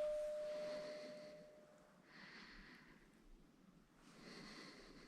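A single long metallic ring, left by a suppressed 9 mm pistol shot, fading out over the first second and a half. Then two faint breath-like hisses.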